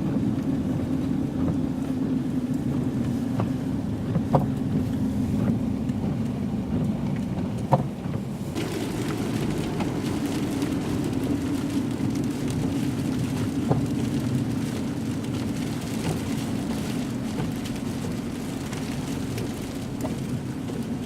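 Steady drone of a car driving on a snow-covered road, heard from inside the cabin, with a few light knocks. About eight seconds in, a louder hiss of tyre and wind noise joins it.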